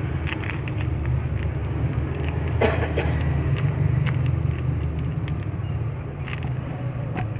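Steady low background rumble, with a few soft clicks and rustles; a sharper click about two and a half seconds in.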